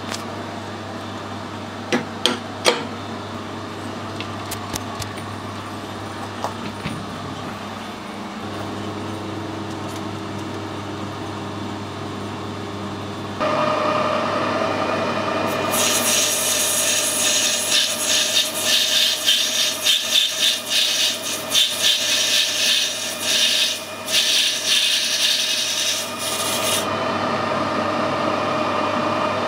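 Metal lathe boring out a bearing bronze bush. A few sharp clicks come about two seconds in, and the machine gets louder about a third of the way through. From about halfway, the boring bar cuts the bronze with a loud, rough cutting noise that stops shortly before the end.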